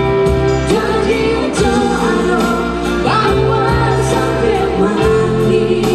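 A woman and a man singing a duet into microphones over keyboard backing music with a steady beat, the voices holding and sliding between long notes.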